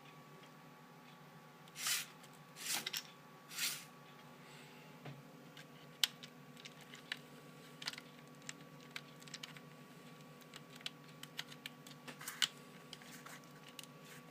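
Three brief rustling bursts, then a long run of light, irregular clicks and taps over a steady low hum.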